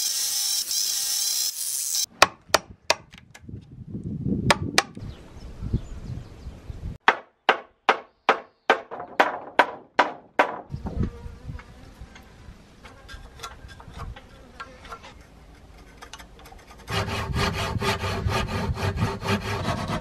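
An electric mitre saw cutting through rough-sawn timber for about two seconds, then two runs of hammer blows on timber, about three a second. Near the end a hand saw cuts wood with quick, even strokes.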